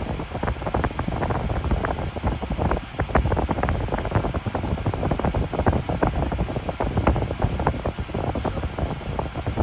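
Steady low rushing rumble with frequent irregular crackles, the kind of noise wind buffeting or a running fan makes on a phone microphone.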